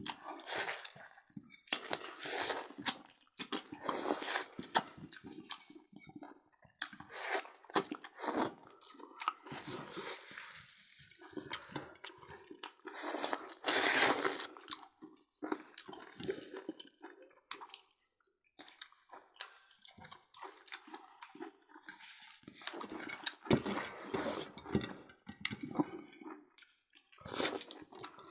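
People chewing and biting roast pork eaten by hand, heard close to the microphone: irregular wet mouth sounds with small crunches, coming in quick uneven bursts.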